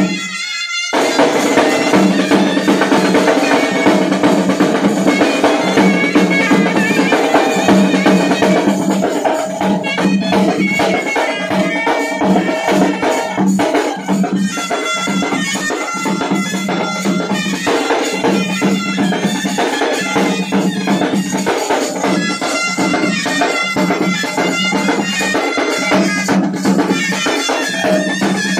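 A South Indian village band playing a loud, driving beat. Large double-headed bass drums are beaten with sticks, with a snare side drum and metal hand cymbals, under a reedy wind instrument carrying the melody. The music breaks off briefly just after the start, then runs on steadily.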